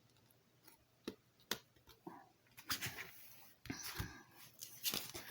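LEGO pieces being handled: small plastic clicks and taps, a few separate ones at first, then a busier run of clicking and rustling in the second half.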